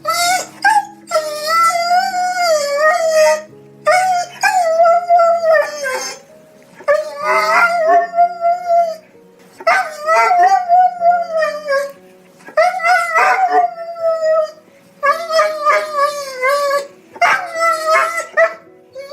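A dog crying in long, wavering howls of about two seconds each, repeated some eight times with short breaks between them.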